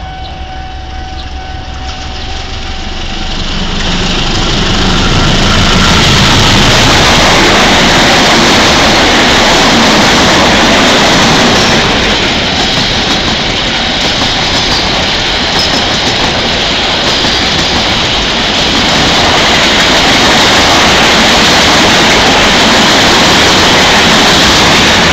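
CC201 diesel-electric locomotive and its long rake of passenger coaches passing close at speed. A steady horn tone sounds for the first few seconds as the train approaches. The sound then grows loud about four seconds in as the locomotive goes by, followed by a long, loud, steady rush of coach wheels on the rails.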